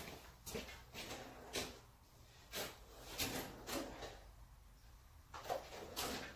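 Faint, irregular clicks and knocks, about eight over several seconds, of hands handling the tail-light wiring connector and parts.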